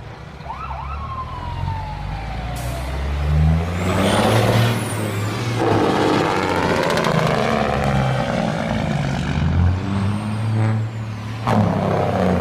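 Heavy trucks' engines running as they roll past in a parade, the engine pitch rising and falling. There is a sharp burst of noise about eleven and a half seconds in.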